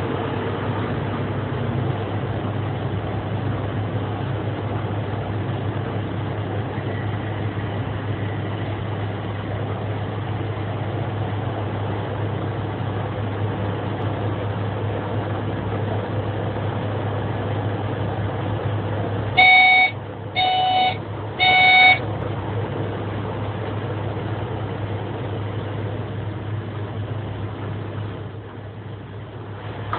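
Swiss SBB train running with a steady low drone, its horn sounding three short blasts about two-thirds of the way through.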